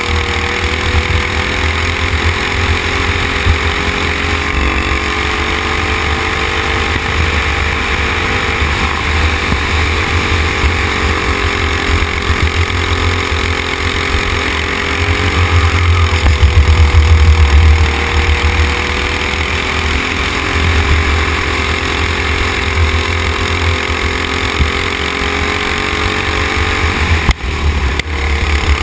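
Racing kart's engine running at speed, heard from on board the kart over heavy low rumble. Its note stays fairly steady, dipping and rising slightly in pitch, with a brief drop near the end.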